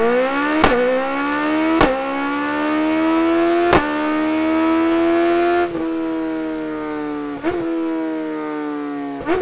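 Suzuki Hayabusa third-generation inline-four engine revving hard. Its pitch climbs quickly at first, then slowly for about six seconds, then drops a little and slowly falls, with a handful of sharp cracks along the way.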